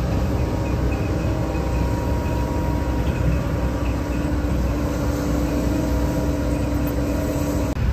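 John Deere 75 P-Tier mid-size excavator's diesel engine and hydraulics running steadily under load as it digs and dumps soil, a deep rumble with a steady whine that shifts slightly in pitch about halfway through. The sound drops out briefly near the end.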